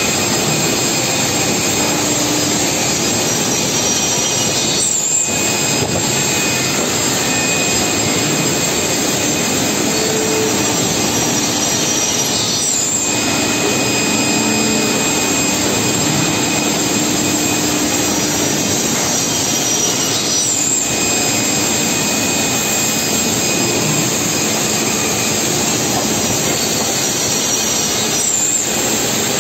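Holztek Tectra 328 CNC panel saw running and sawing through a stack of wood panels: a steady, loud whirring machine noise that dips briefly about every eight seconds.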